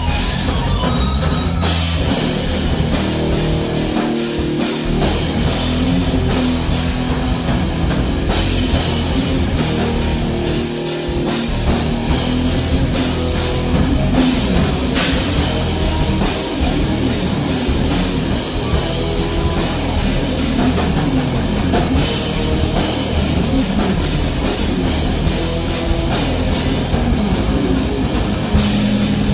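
Live band jamming an improvised two-note rock riff on E and F, with guitar over a steady drum kit beat.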